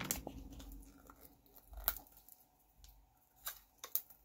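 Faint handling sounds of plastic-wrapped sticker packs: soft crinkles and a few short sharp clicks, about two, three and a half and four seconds in.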